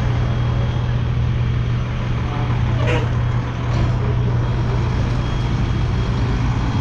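A large vehicle's engine idling with a steady low hum, unchanged throughout.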